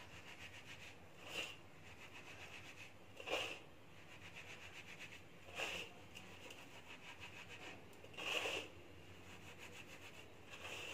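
Hands rubbing coarsely ground poha (flattened rice) with ghee and sugar against a brass plate: a soft, gritty rubbing that swells louder about every two to three seconds as the mixture is worked together.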